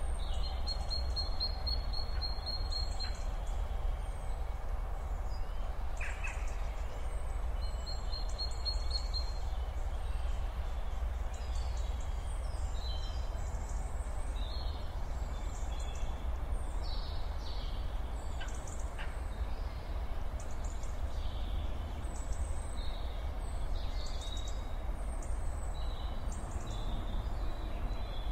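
Outdoor ambience: small birds chirping, with two quick high trills early on and many short chirps later, over a steady low rumble.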